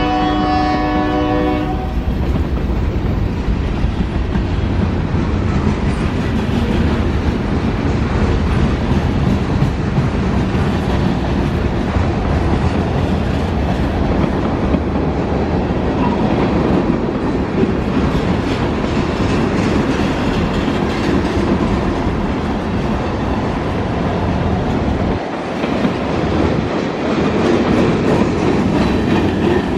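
Freight train of tank cars and covered hopper cars rolling past: a steady rumble and clatter of steel wheels on the rails. A locomotive horn sounds a chord at the start and cuts off about two seconds in.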